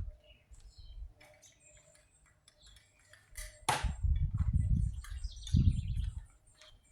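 Birds chirping faintly. About three and a half seconds in there is one sharp crack, followed by a few seconds of uneven low rumbling.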